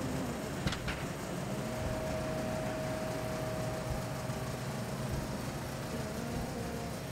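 Steady background hum and rumble of a small shop, with two quick clicks about a second in and a faint held tone through the middle.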